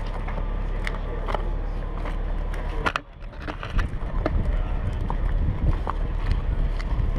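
Gloved hands handling and fitting demolition charges against a concrete wall among rubble: scattered clicks, taps and scrapes over a steady low rumble, which dips briefly about three seconds in.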